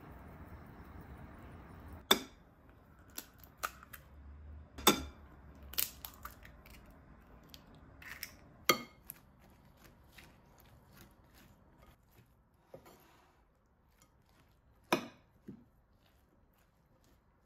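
Kitchen prep sounds at a bowl of shredded cabbage: a scatter of sharp taps and clicks against the bowl as eggs and oil go in, then quieter light clicking as the mixture is stirred with a fork.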